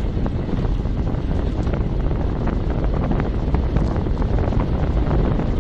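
Wind buffeting the microphone of a bike-mounted camera on a fast downhill road ride, a steady low rumble with occasional light ticks.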